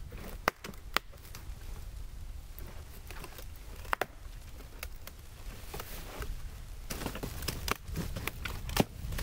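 Birch bark being handled and peeled from a felled birch log: a few sharp cracks of the stiff bark, with crinkling and rustling that thicken near the end.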